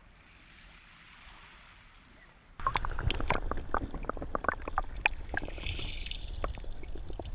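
Faint hiss, then about two and a half seconds in a camera goes into shallow sea water: sloshing and a dense, irregular crackle of sharp clicks heard underwater off a shingle beach.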